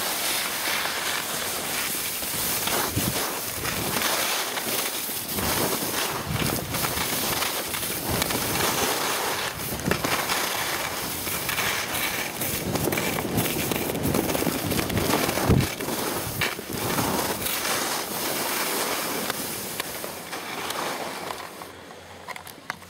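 Skis scraping and hissing over chopped spring snow during a downhill run, mixed with wind noise on the microphone, with a few sharp knocks along the way. The noise drops near the end.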